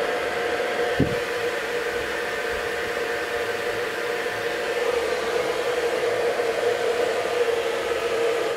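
Irresistible Me Onyx ionic hair dryer with a DC motor running steadily: an even rush of air over a steady motor hum. A brief low knock about a second in.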